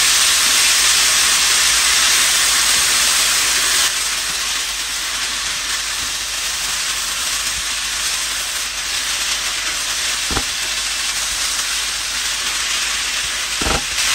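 Soaked raw rice and mutton sizzling in oil in an electric skillet while being stirred with a spatula: the rice is being fried before the water goes in. The sizzle drops slightly after about four seconds, and there are two short knocks near the end.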